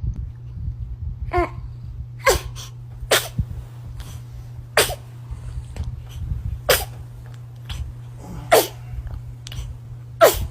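A baby sneezing again and again, about seven short, sharp sneezes every one to two seconds, the last two the loudest, over a steady low hum.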